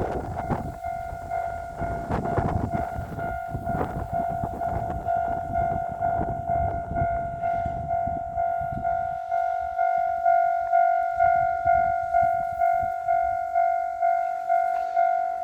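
Level-crossing warning bell ringing in a steady electronic ding, a little under two a second, while a train runs over the crossing with a low rumble and wheel clatter. The train noise dies away about ten seconds in and the bell keeps ringing.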